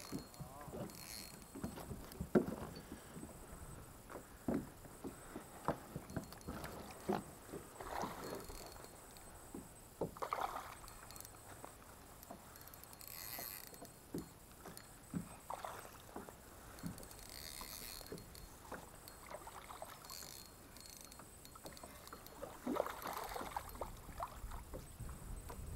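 Kayak on calm creek water: faint water lapping against the plastic hull, with scattered light knocks and clicks throughout.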